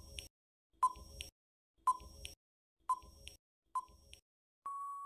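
Quiz countdown-timer sound effect: short electronic beeps about once a second, then one longer steady beep near the end that signals time is up.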